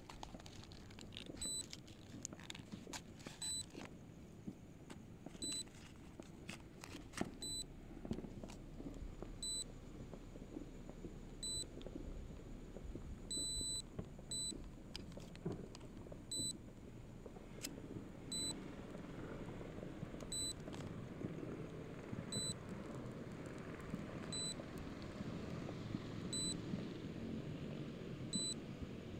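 Short high-pitched electronic warning beeps from the drone's controller app, one about every two seconds, sounding with the drone's distance-over-2-km warning. Under them a low steady rumble, with a few faint sharp pops in the first several seconds.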